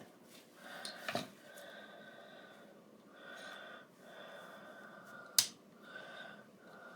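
Two sharp plastic clicks from a vintage Barbie doll being handled while its wobbly head is worked at, the louder one about five seconds in. Soft breathing with a faint whistle comes in short stretches between them.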